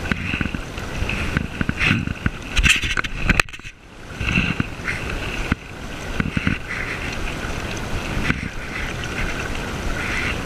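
Shallow river water rushing over stones, with wind buffeting the microphone held low over the water. A cluster of sharp knocks and rustles of handling comes about three seconds in.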